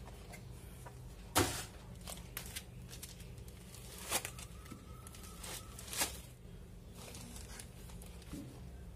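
Faint rustling and crinkling of plastic wrap and foam packing pieces being handled and pulled off, with a few sharp crackles, three of them louder, over a low steady hum.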